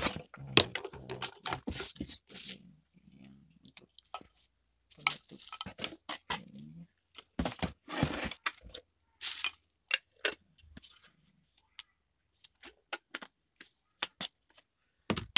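Plastic wrapping and bubble wrap crinkling and rustling, with cardboard box flaps and hard plastic blender jars and parts knocking as they are handled, in irregular bursts and sharp clicks.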